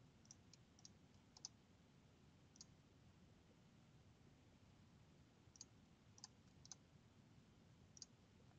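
About ten faint computer mouse clicks over near-silent room tone. They come in a quick run at the start, then a pause of a few seconds, then another group near the end.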